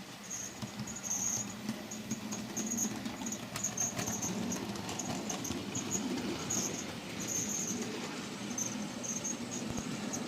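Model railway goods train running along the track: a steady low hum with scattered wheel clicks and frequent short, high-pitched squeaks.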